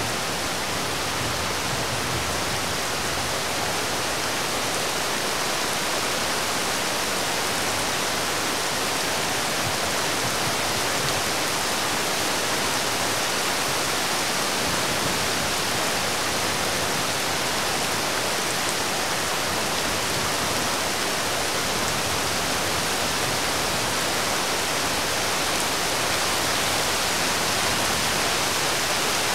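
Steady rain falling, an even hiss that holds the same level throughout.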